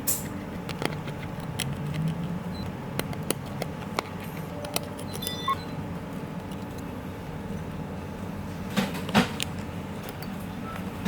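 Small metal repair tools clicking and tapping lightly on a workbench at irregular moments, with a cluster of louder taps near the end, over a steady low hum.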